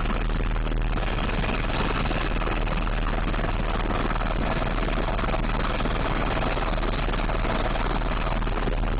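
Tour helicopter in flight: a steady, even drone of engine and rotor noise with a strong low hum.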